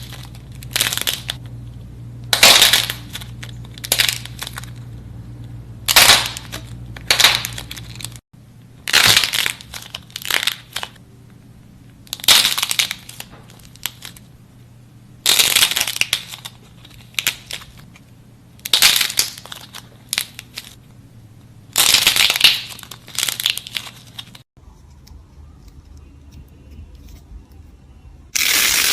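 Repeated crunchy crackling as a crisp, brittle slime or clay material is pressed and squeezed, in short bursts every second or two. Near the end a louder, steady rushing noise starts abruptly.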